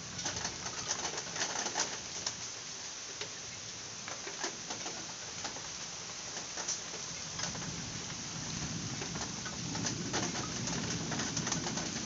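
Steady rain with many drops ticking close by, and a dove cooing low underneath, louder in the second half.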